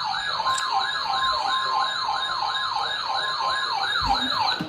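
Electronic emergency alert siren sweeping up in pitch over and over, about three times a second, with a steady high tone sounding alongside it for most of the time; both stop abruptly near the end.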